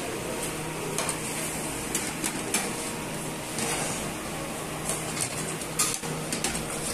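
Irregular light clicks and clatter of plates and serving spoons being set down and handled as food is dished out, over a steady hum.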